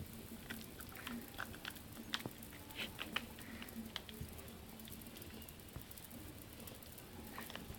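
Cocker spaniel puppy chewing on a toy: irregular small clicks and gnawing sounds, busiest in the first four seconds and sparser after.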